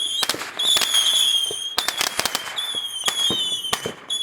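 Fireworks going off: a run of high, wavering whistles about a second long each, overlapped by many sharp firecracker cracks and pops.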